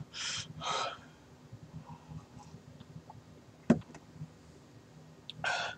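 A man's two quick, hissing breaths through an open mouth, the kind drawn against a chili pepper's burn in the mouth, then another near the end. A single sharp click about three and a half seconds in.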